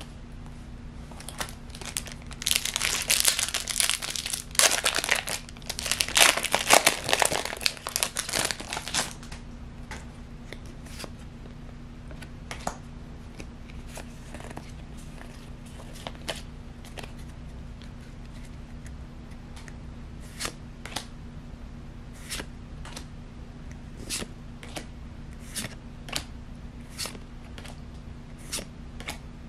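Foil Pokémon booster pack wrapper crinkling and tearing open for several seconds. Then the cards inside are slid one behind another, with a short, crisp snap about once a second.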